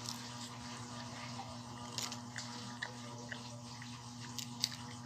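Faint, scattered small clicks and soft crinkles from candy being handled and eaten close to the microphone, over a steady low electrical hum.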